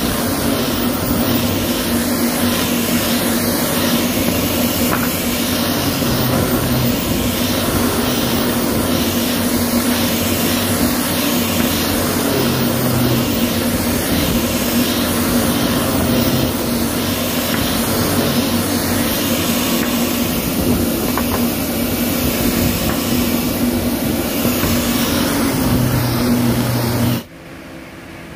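Electric angle grinder fitted with a sanding disc, running steadily with a constant hum and hiss as it sands a wooden slat. The sound cuts off abruptly near the end.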